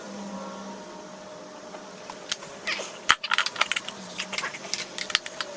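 Small hard parts being handled close to the microphone: quiet at first, then from about two seconds in a busy run of light clicks and rattles with one sharper knock a little after the middle.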